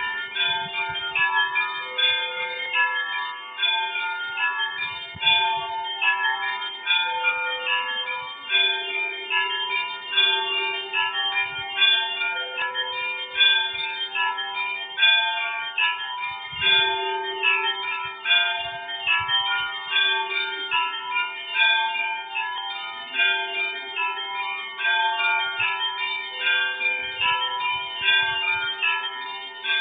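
Orthodox church bells ringing: several bells of different pitches struck over and over in a busy, continuous pattern, with a deep bell sounding underneath throughout.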